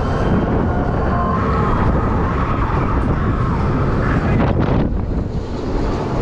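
Wind buffeting the camera microphone in a loud, steady rumble as a swinging fairground thrill ride carries the seat up and down through the air.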